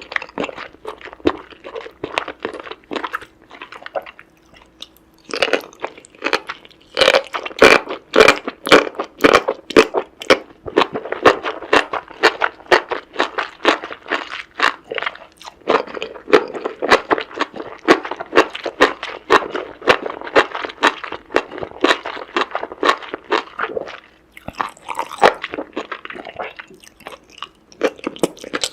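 Close-miked chewing and crunching of seafood: rapid crisp crunches, loudest from about seven to ten seconds in, with brief lulls around four seconds and near the end.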